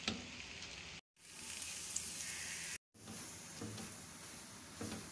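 Paratha frying in oil on a hot tawa, sizzling steadily while it is pressed down with a silicone spatula. There is a sharp tap right at the start, and the sizzle cuts out briefly twice.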